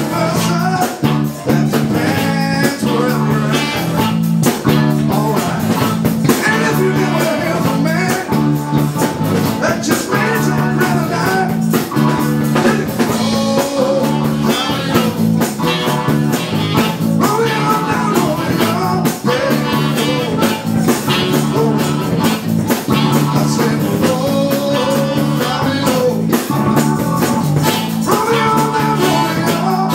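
Live band playing a blues-rock number: electric guitar over a steady bass line and drum kit.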